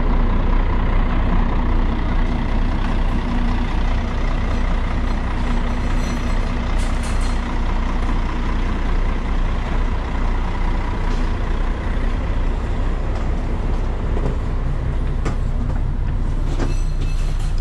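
A tour coach's diesel engine idling close by: a steady low rumble with a constant hum and whine, and a few light clicks and knocks over it.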